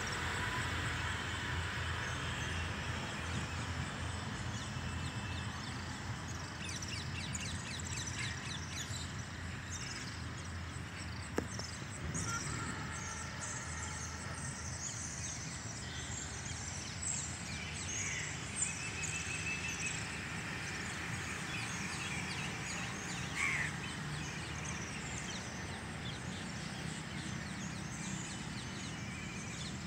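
Morning birdsong: many small birds chirping and calling, thickest through the middle stretch, over a steady low rumble. A single sharp click comes about eleven seconds in.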